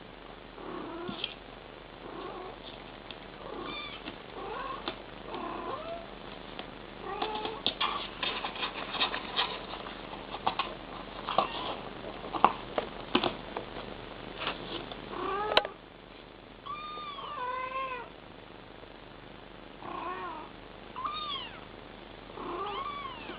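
Mother cat and kittens meowing back and forth: many short mews and chirps that rise and fall in pitch, with sharp little clicks and taps between them.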